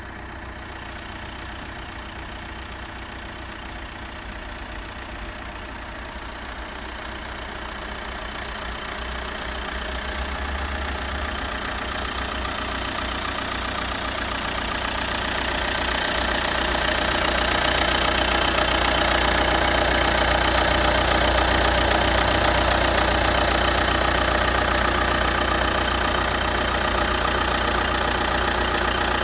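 Renault Kangoo II's K9K 1.5 dCi four-cylinder common-rail diesel (Delphi injection) idling steadily; the engine is in good working order. It grows steadily louder over the first half and then holds.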